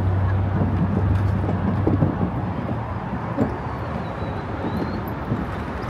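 Busy city street ambience with traffic: a vehicle engine's steady hum through the first two seconds or so, then fading into general traffic and street noise.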